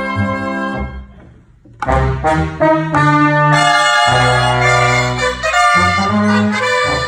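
A Catalan cobla band, reeds and brass with a low string bass, playing a slow piece; the music thins to a brief near-pause about a second in, then the full band comes back in loudly with held brass chords.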